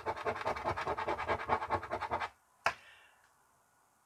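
Coin scraping the coating off a lottery scratch card in quick, rapid strokes, stopping abruptly a little over two seconds in; a single sharp click follows, then near silence.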